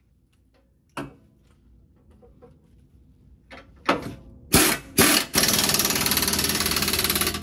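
Cordless impact gun snugging down the nuts on a transmission crossmember's bolts. After a single knock about a second in, it fires a few short bursts, then hammers continuously from about five seconds in.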